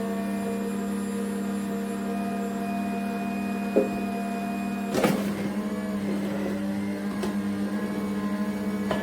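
Cold-press slow juicer's electric motor running with a steady hum, broken by a few sharp knocks, the loudest about five seconds in.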